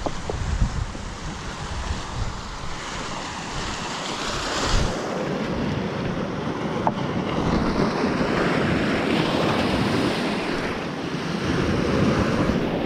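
Sea waves washing onto the beach, with wind gusting on the microphone; the surf swells louder about five seconds in.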